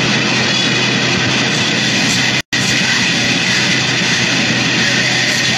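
Harsh noise music: a loud, dense wall of noise with a steady low hum beneath it, cutting out abruptly for a split second about two and a half seconds in.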